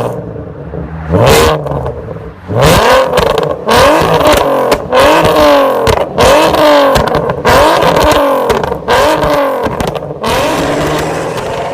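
Car engine being revved over and over in quick throttle blips, about one a second, each climbing in pitch and falling away again.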